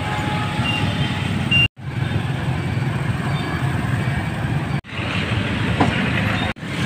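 Street traffic: a steady low rumble of passing vehicles, broken by two brief dropouts.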